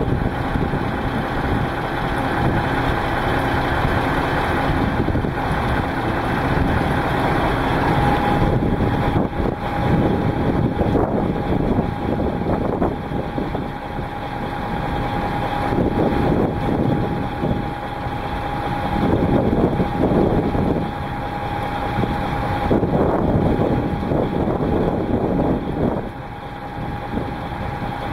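Heavy rain pouring down in a thunderstorm, a steady noise that swells and eases, with a faint steady whine.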